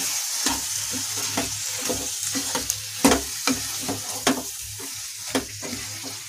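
Wooden spatula stirring soya chaap in a thick masala in a kadai, scraping and knocking against the pan about twice a second over a steady sizzle of frying.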